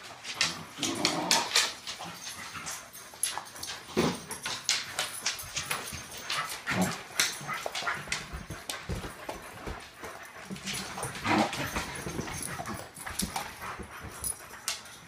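Dogs making short whimpers and yips among scuffling clicks and knocks.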